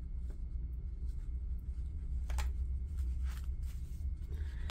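Faint rustling and light taps of cardstock tags being handled and folded together, a few short clicks scattered through, over a steady low hum.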